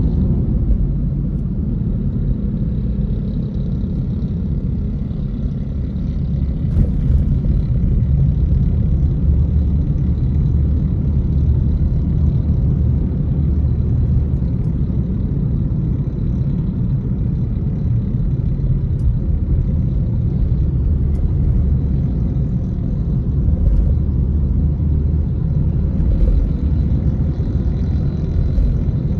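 Steady low rumble of a car in motion, heard from inside the cabin: tyre and engine noise, with a brief light knock about seven seconds in.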